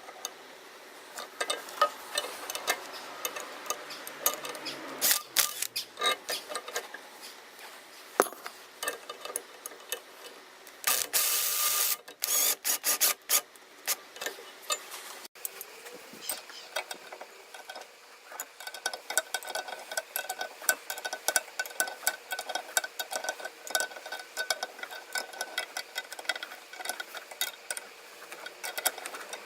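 Hand-tool work on metal: repeated clicks, clinks and knocks of spanners and nuts as a threaded rod with nuts and bolts is fitted and tightened between the swing arm's mounting arms, with a short burst of rasping about eleven seconds in.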